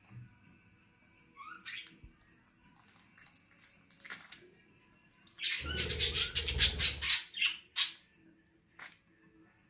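Kakariki parakeets calling as they forage: a short rising chirp, scattered sharp clicks, and a loud harsh burst of about a second and a half near the middle, then a few more short sharp calls.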